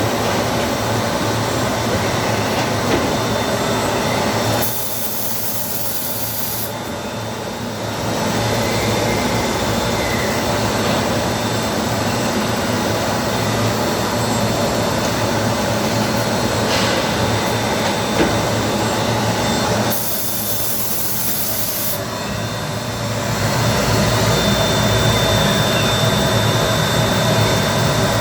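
Mori-Say TMZ 8/42 CNC eight-spindle automatic lathe running with a steady machining noise. Twice, about fifteen seconds apart, the noise drops for a few seconds, with a short high hiss at the start of each drop.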